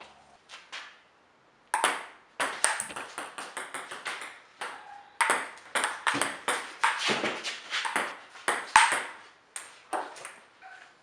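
Table tennis ball rallied against the upright half of a table in playback position: quick sharp ticks of ball on paddle and ball on table, about three a second, starting about two seconds in with a couple of short breaks and stopping just before the end.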